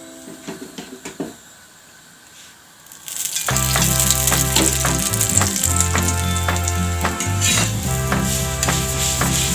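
Background music with a bass line and a steady beat, coming in loud about three and a half seconds in after a quiet stretch with a few faint clicks.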